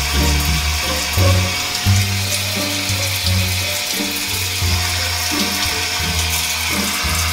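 Overhead shower head running, a steady spray of water hissing, over background music with a low, stepping bass line.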